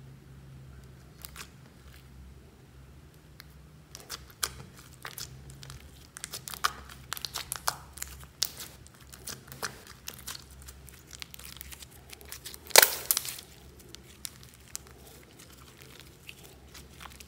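Glossy slime being stretched and squeezed by hand, giving off irregular sticky clicks and crackling pops, with one loud pop about three-quarters of the way through.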